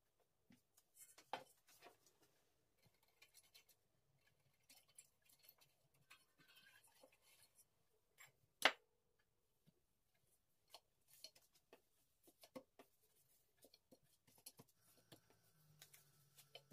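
Quiet kitchen handling sounds: soft rustles and taps as paper-thin hand-rolled pastry sheets are unrolled off a long wooden rolling stick and laid into a round steel baking tray, with one louder sharp knock with a short ring a little past halfway.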